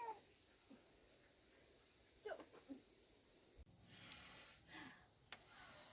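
Near silence with a faint, steady high-pitched insect drone, and a few faint voice sounds.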